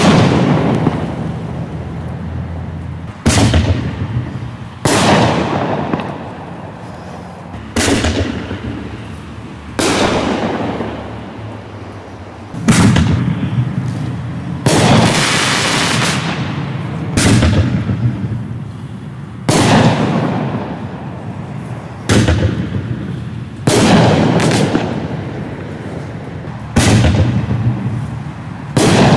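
Black Cat Magnum artillery shells going off in sequence: about a dozen loud, sharp bangs, one every two to three seconds, each with a fading tail. One bang about halfway trails a longer hiss.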